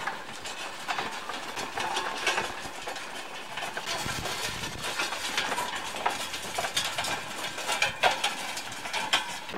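Loaded wooden handcart rolling along a dirt trail, its spoked wheels and load rattling with frequent clicks and knocks, along with the footsteps of the people pulling it.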